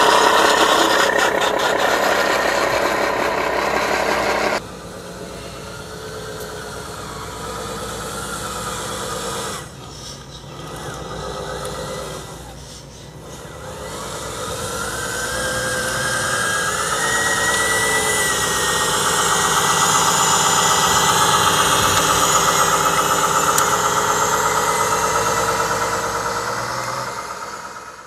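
1/10-scale RC model trucks driving on dirt, a steady mechanical running sound with several pitched lines. The sound changes abruptly about four and a half seconds in, then climbs in pitch around the middle as the truck speeds up and holds there until it cuts off at the end.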